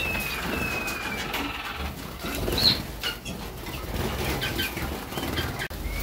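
Young Harzer Roller canaries bathing: wings fluttering and splashing in the water, with short chirps and, in the first second or so, one long whistled note that falls slightly.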